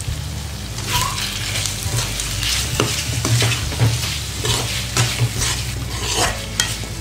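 A spatula stirs and scrapes chicken pieces frying in oil in a kadai, with repeated scraping strokes starting about a second in over the sizzle. A low steady hum runs underneath. This is the last stage of a pepper chicken fry: ground pepper is being stirred into chicken that has cooked dry in its oil, with no water added.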